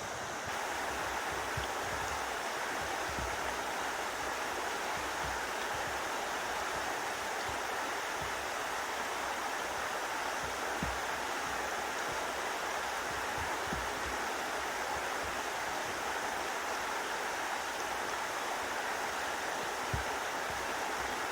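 Mountain stream running: a steady, unbroken rush of water.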